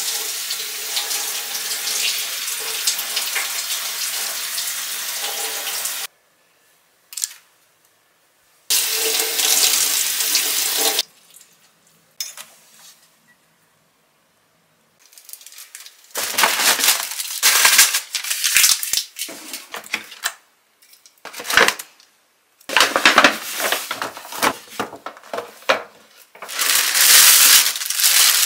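Kitchen tap running into a stainless-steel sink twice, water splashing through a potted plant held under it: a run of about six seconds, then a shorter one of a couple of seconds. From about halfway on, a thin plastic carrier bag crinkles and rustles in irregular bursts as it is handled and opened.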